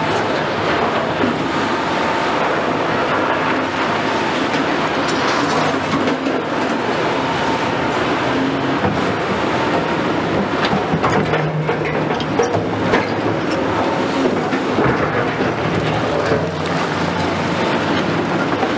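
Cat 352F XE excavator working, its Cat C13 diesel engine running steadily under load, with scattered knocks and scrapes of the bucket in rubble.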